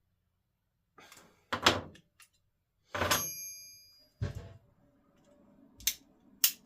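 Metal clanks and clicks from a Jeep door latch mechanism being handled and worked: a clatter, one knock that rings briefly like struck metal, a dull thump, then two sharp clicks near the end.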